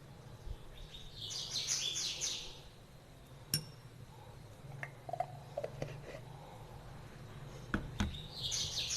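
A small bird chirping in quick high bursts, about a second in and again near the end, with a sharp clink and a few lighter taps of a metal spoon against a glass in between.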